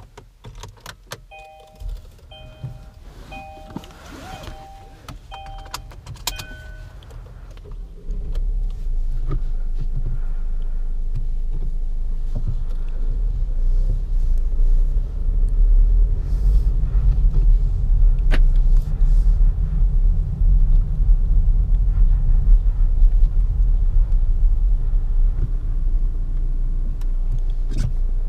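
Cabin of a Kia Optima SW: a few clicks and a dashboard warning chime repeating about once a second. About eight seconds in, the 1.7 CRDi four-cylinder turbodiesel starts, and a steady low engine and road rumble follows as the car drives.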